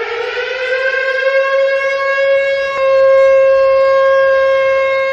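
Warning siren winding up, its pitch rising over the first two or three seconds and then holding one steady tone, louder from about three seconds in.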